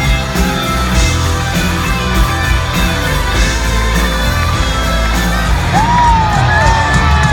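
Live rock band playing loud, with electric guitar over a heavy bass, heard from within the audience. About six seconds in, a high yell slides up and down in pitch over the music.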